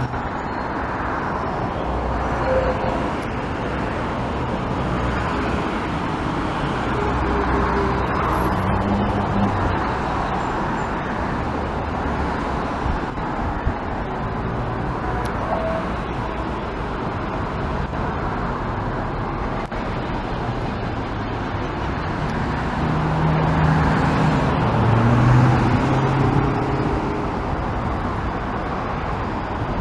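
Steady rushing roar of the Paterson Great Falls waterfall, heard from a distance. A low hum swells briefly about three quarters through.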